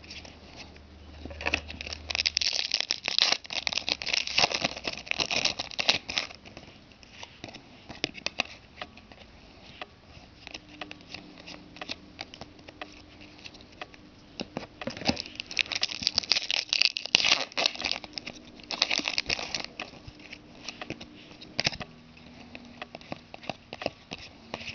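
Trading-card pack wrapper crinkling and tearing as a pack is opened, with the cards rustling and clicking as they are handled. The sound comes in busy clusters, the first about two seconds in and the second about fifteen seconds in.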